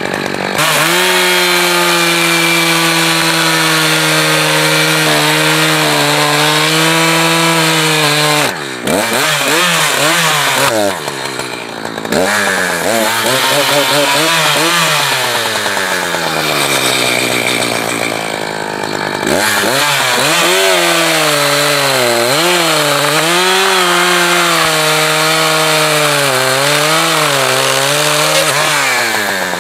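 Echo two-stroke chainsaw running at high revs cutting firewood, its engine note sagging and recovering as the chain bites into the wood. The revs drop and pick up again about a third of the way in, waver for a few seconds, then settle into a longer cut with the pitch rising and falling near the end.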